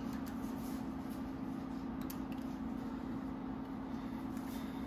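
A steady low hum over even background noise, with a few faint light ticks about two seconds in.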